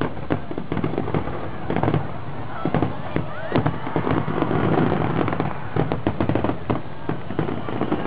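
Fireworks display: aerial shells bursting in quick succession, a dense, irregular stream of bangs and crackles.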